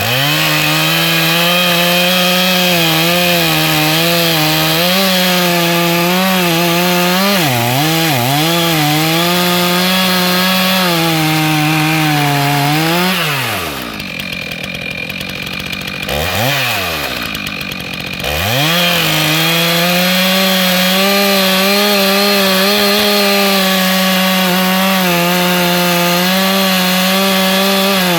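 Stihl MS 311 two-stroke chainsaw running at full throttle through a log on a freshly sharpened chain, its engine pitch dipping under the load of the cut. About halfway through, the throttle is let off for a few seconds and blipped once, then the saw goes back to full throttle in the cut.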